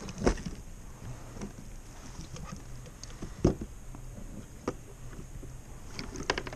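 Sharp knocks and bumps on a plastic kayak hull while a landed channel catfish is handled in a landing net, a few single knocks and then a quick cluster near the end.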